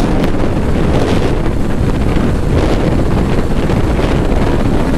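Heavy wind rushing over the microphone of a motorcycle rider at speed, with the motorcycle's engine running underneath.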